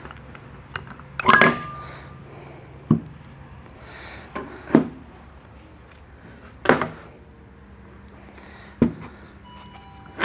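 Sharp metal clunks and clinks as the split aluminium crankcase halves and internals of a KTM 150 SX two-stroke engine are handled and set on the bench: about five knocks a couple of seconds apart, a few of them ringing briefly.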